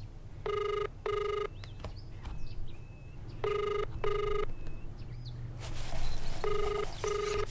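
Telephone ringing in a double-ring pattern, three 'ring-ring' pairs about three seconds apart, as a call waits to be answered. A rustling hiss joins in over the last two seconds.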